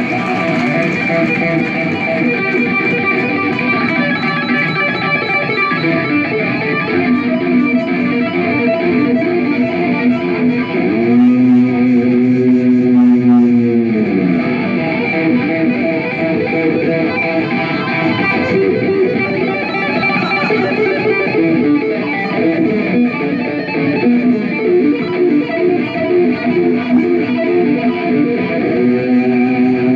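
Amplified double-neck electric guitar played solo live, with quick melodic runs and a long held, bent note with vibrato about eleven seconds in.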